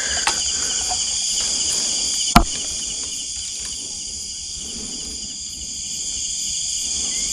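Steady high-pitched night chorus of crickets and other insects, with one sharp click about two and a half seconds in.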